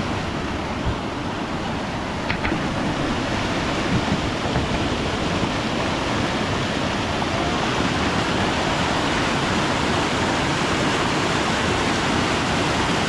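Mountain river water pouring over boulders in a small whitewater cascade close by: a steady, loud rush of water.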